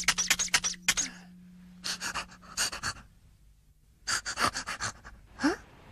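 Rapid, short panting breaths from an animated character, about ten a second, in several bursts, ending in a short voiced sound that rises in pitch.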